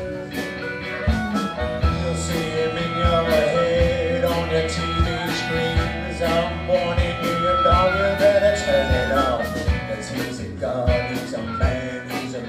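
A live band plays an instrumental passage. A harmonica carries a long wavering lead over electric guitar, bass and a steady drum beat.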